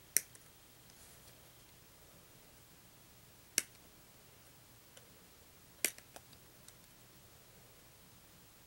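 Hobby nippers snipping plastic model-kit parts off the runner: three sharp snips a couple of seconds apart, with a few fainter plastic clicks between them.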